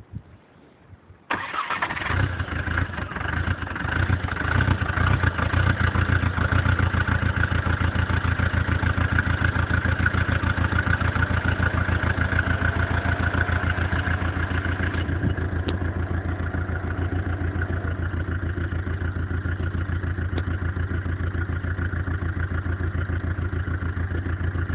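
Volvo V50 diesel engine starting abruptly about a second in, running rough and uneven for several seconds, then settling into a steady idle with a regular pulsing beat. The owner thinks the bad start is probably a fuel fault, maybe water in the diesel.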